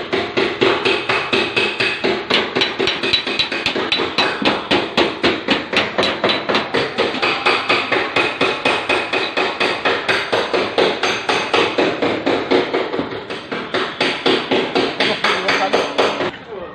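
Body hammer rapidly striking a car's steel fender panel, about four to five even blows a second with a metallic ring, as the dented panel is beaten back into shape. The hammering stops abruptly near the end.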